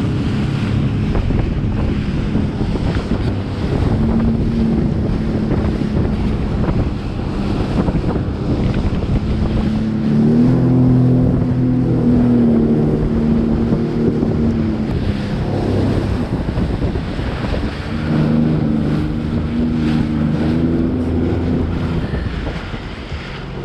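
Sea-Doo GTX jet ski running at speed over choppy sea: a steady engine drone with water rushing against the hull and wind buffeting the microphone. The engine note rises and grows louder about ten seconds in and again later, then eases off near the end.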